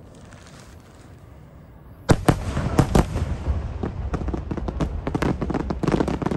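Starmine barrage of aerial firework shells: a low hiss at first, then about two seconds in a sudden loud bang, followed by a rapid, continuous volley of booms and crackling bursts.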